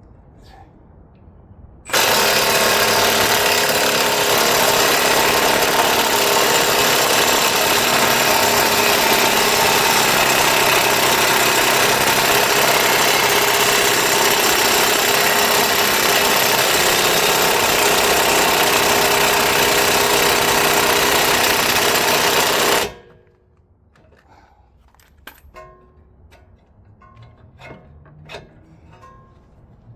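Power impact wrench hammering without pause for about twenty seconds on a stuck fastener of a front wheel hub assembly. It starts abruptly about two seconds in and cuts off suddenly, and the part does not come free. A few faint clicks and knocks follow.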